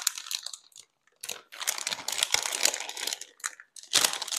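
Hands tearing a rotisserie chicken apart, pulling meat and skin off the bone: a dense run of small crackles and tears, with a short pause about a second in.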